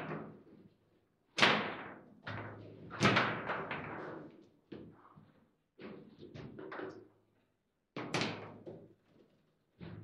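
Foosball table in play: irregular sharp knocks and slams as the ball is struck by the figures on the rods and bangs against the table, with short quiet gaps between bursts. The loudest hits come about a second and a half in, about three seconds in and near the end.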